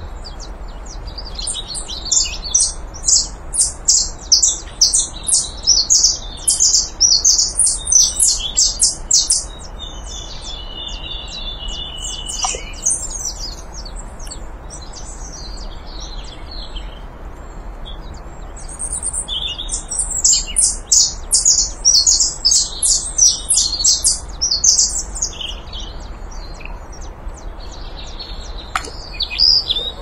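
Saffron finch singing: two long bouts of rapid, high chirping notes, the first from about two seconds in and the second about two-thirds of the way through, with scattered single notes between them.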